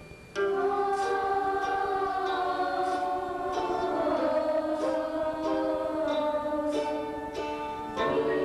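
Youth choir singing in harmony, held chords that shift from note to note, coming in suddenly about half a second in after a brief lull, with a new phrase starting near the end.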